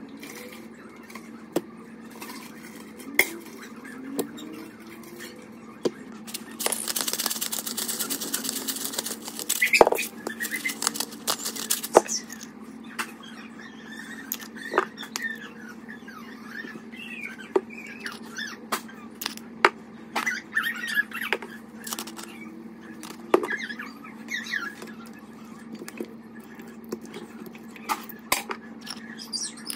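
Food-prep handling at a ceramic slow-cooker crock: raw chicken breasts being laid in and seasoning shaken over them, heard as scattered clicks and knocks, small squeaks, and a noisy burst lasting about three seconds, about seven seconds in, over a steady low hum.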